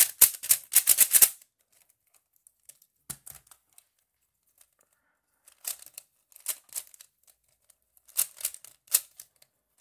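Cyclone Boys Feiwu 3x3 plastic speed cube being turned by hand: quick runs of clicking as the layers turn, a near-quiet pause of a few seconds after the first run, then more short bursts of turns.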